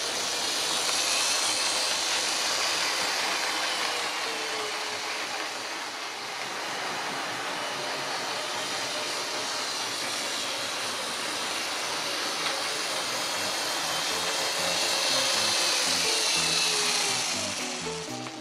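H0-scale model diesel locomotive and long container wagons running on the track: a steady whirring motor and wheel rumble with a faint gliding whine, louder as the train passes close about a second in and again near the end.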